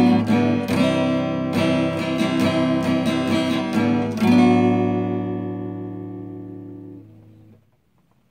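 Acoustic guitar strummed in a steady rhythm. About four seconds in, a final chord is struck and left to ring, fading out over about three seconds: the closing chord of the song.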